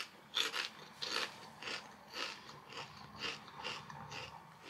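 A person chewing a mouthful of crunchy potato crisps close to the microphone: a steady run of crunches, about two to three a second, softening toward the end.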